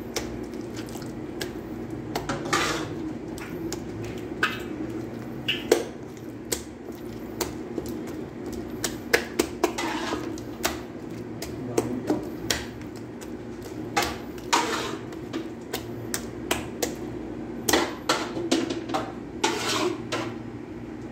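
A hand works raw chicken pieces through thick wet batter in an aluminium roasting pan, with irregular clicks and knocks against the metal pan over a steady background hum.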